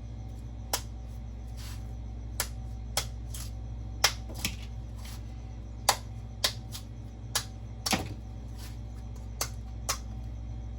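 Fox Pelican folding knife chopping into the husk of a young coconut: about a dozen sharp, separate knocks at irregular intervals, roughly one a second, as the top is hacked off in a circle down to the hard shell. A steady low hum runs underneath.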